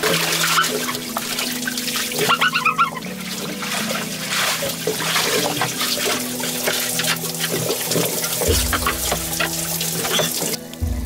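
Water splashing and sloshing as a person moves through a pool, over background music with steady held tones.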